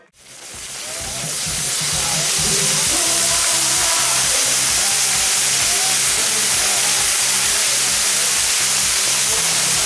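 Maltese mechanical ground firework burning: its many spinning fire-fountains give a loud, steady rushing hiss that builds up over the first two seconds and then holds.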